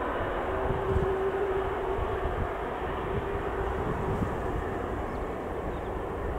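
Airbus A330 airliner's jet engines running at taxi power as it turns: a steady noise with a faint held tone.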